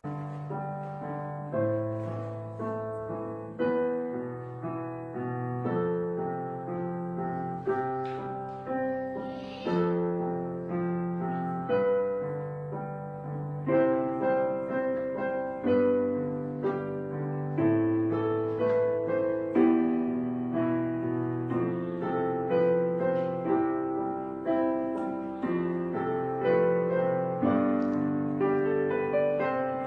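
Slow background piano music: chords struck and left to ring over a low bass line.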